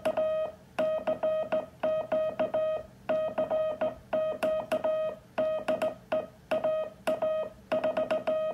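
Homemade straight-key code-practice oscillator, a multivibrator whose square wave is rounded toward a sine by a three-stage RC filter, sounding a steady mid-pitched tone over a speaker. Morse code is sent on a Kent brass straight key: short and long elements in groups with brief pauses, each starting with a faint click.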